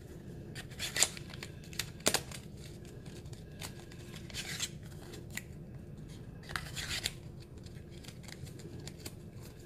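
Hands handling small cosmetic packaging: a couple of sharp clicks in the first two seconds, then rustling of packaging about four and a half and seven seconds in.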